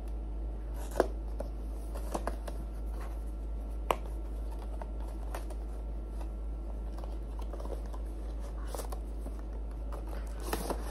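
Paperboard retail box being handled and opened: scattered clicks, taps and light scraping of cardboard as it is turned over and a flap is pulled open, busiest near the end. A steady low hum runs underneath.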